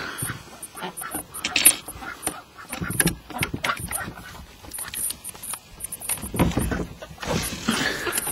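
Domestic ducks quacking at intervals, mixed with scattered knocks and clatter as the duck house is opened.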